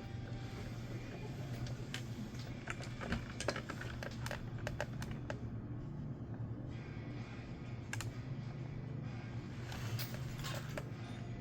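Irregular light clicks and taps of small plastic parts being handled as a toy dart blaster is taken apart, over background music.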